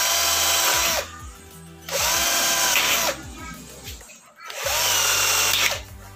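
Cordless drill boring into an aluminium screen-panel frame in three short runs of about a second each. The motor whine rises as it spins up and drops away as each run stops.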